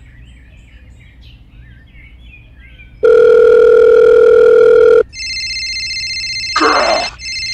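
Telephone sound effects: a loud, steady dial tone starts about three seconds in and lasts two seconds. It then cuts to a high, trilling phone ring that carries on to the end.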